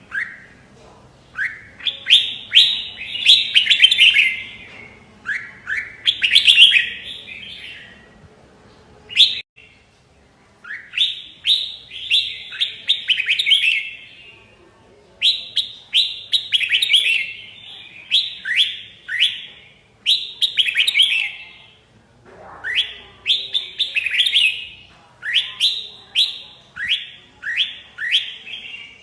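Red-whiskered bulbul singing: repeated phrases of quick, rising whistled notes, each phrase a second or two long, with short pauses between.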